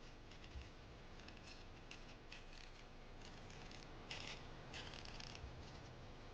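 Faint, irregular scraping strokes of a blade peeling the tough skin off a kohlrabi bulb, a few short strokes a second, some stronger than others.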